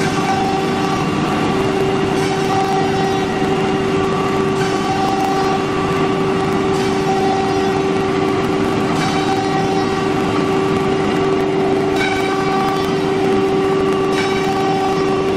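Wood CNC router running, its spindle giving a steady whine at several fixed pitches, with the higher sound changing in a regular pattern about every two seconds.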